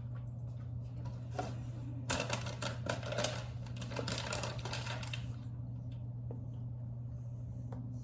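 Plastic snack packaging crinkling and crackling in a dense run of sharp clicks from about two seconds in to about five seconds in, over a steady low hum.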